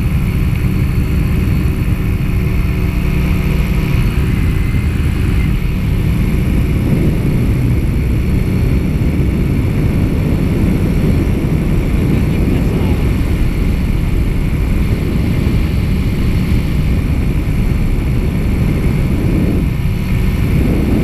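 Nirvana 230 cc two-stroke paramotor engine and propeller running steadily in flight, a loud continuous low drone with rushing noise that swells now and then.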